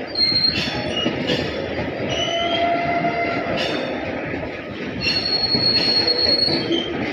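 Freight train of BTPN petroleum tank wagons rolling past: a steady rumble of steel wheels on rail with a few knocks, and high wheel squeals that come and go, the longest about five seconds in.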